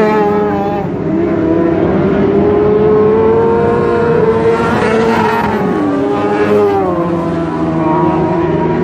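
Several open-wheel dirt-track race cars running at racing speed, their engines overlapping and rising and falling in pitch as they go through the turns. One car passes close about five seconds in, its pitch dropping sharply as it goes by.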